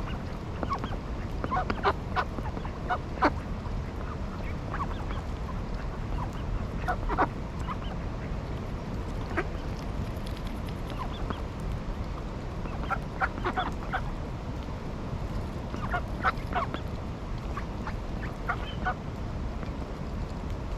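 Ducks and other waterfowl calling: short honks and quacks come in scattered clusters every few seconds over a steady low background noise.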